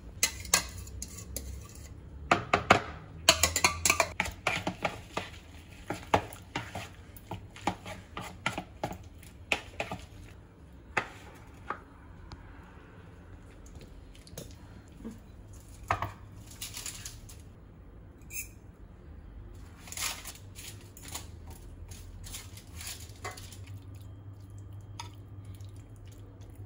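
A wooden spatula stirring and scraping through imitation crab sticks and mayonnaise in a plastic bowl. It makes a run of quick clicks and knocks against the bowl that comes thick at first and thins out after about ten seconds.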